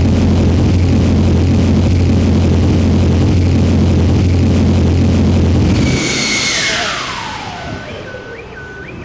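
Astro Mechanica Gen 3 electric adaptive jet engine running on hot fire with a loud, steady deep roar that cuts off about six seconds in. Its whine then falls steadily in pitch as it spools down, and a repeating rising beep starts near the end.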